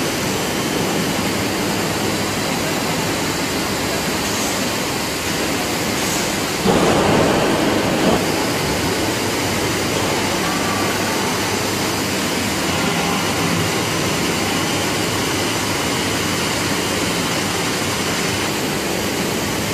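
Steady rushing din of factory machinery in a gauze production hall, with a louder, lower rush lasting about a second and a half some seven seconds in.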